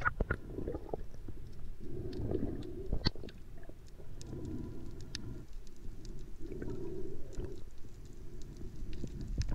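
Underwater sound picked up by a diving camera: low, muffled water movement that swells and fades about every two seconds, with scattered sharp clicks.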